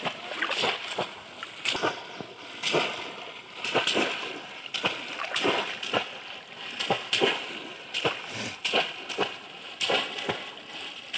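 Woven bamboo plunge-basket fish traps slapped down into shallow muddy water and lifted again, making repeated irregular splashes about one or two a second, along with the sloshing of legs wading through the water.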